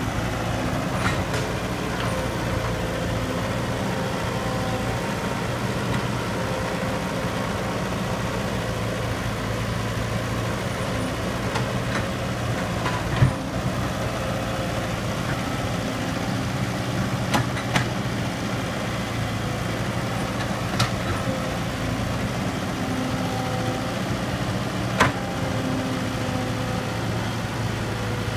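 Heavy diesel engine of earth-moving machinery running steadily, with a few short sharp knocks scattered through, the loudest about thirteen seconds in.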